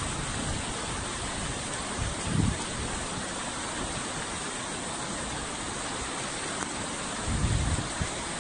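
Heavy rain falling as a steady hiss, with two brief low rumbles about two and a half and seven and a half seconds in.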